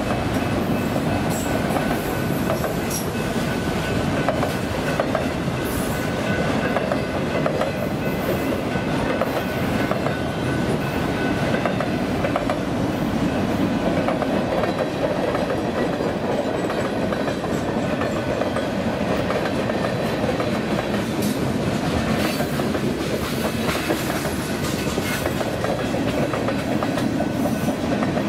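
Freight cars (autoracks, then steel coil cars) rolling past, a steady, loud rumble of steel wheels on rail with clickety-clack over the rail joints. A faint high whine runs through the first half.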